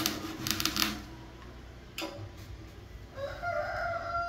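A hand chisel scraping the spinning coconut-wood vase on a wood lathe, a rapid rasping that stops about a second in. A single knock follows near two seconds, then a rooster crows, one long call starting about three seconds in.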